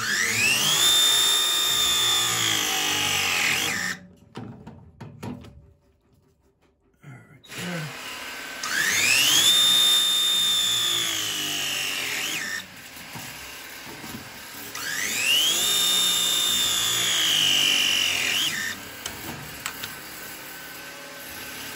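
Battery-powered pipe press tool crimping copper press fittings, three presses in a row. Each press is a motor whine that rises in pitch over about a second, holds steady for a few seconds, then cuts off as the jaws finish the press.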